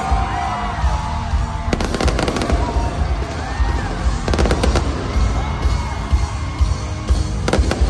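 Fireworks going off in quick volleys of sharp bangs, about two seconds in, around four and a half seconds, and again near the end. Loud concert music with a heavy bass plays underneath.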